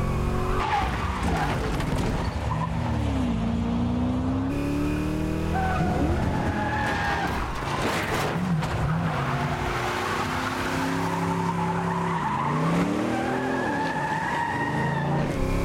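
A Chevrolet Chevelle muscle car's V8 revs up and down through hard cornering, dipping and climbing several times. Its tyres squeal in sliding turns about six seconds in and again near the end.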